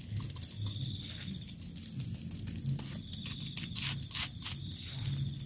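Small wood fire crackling under a grilling pomfret, with scattered sharp pops and ticks, as the fish is basted with soy sauce.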